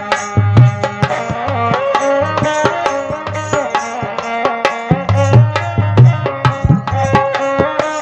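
Instrumental interlude of Rajasthani folk devotional music: a sustained melody instrument over a fast, busy hand-drum beat, with no singing.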